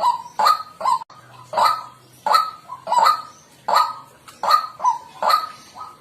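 White-breasted waterhen calling: a steady run of loud, harsh 'kwak' notes, about two a second.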